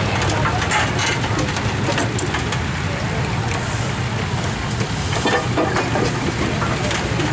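Steam traction engine running, its flywheel and motion turning, with a steady run of mechanical clicks and knocks over a low drone.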